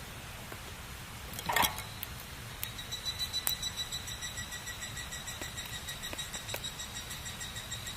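Wood fire crackling with scattered small snaps and one louder pop about a second and a half in. From about two and a half seconds in, a thin high whistle pulses steadily alongside it.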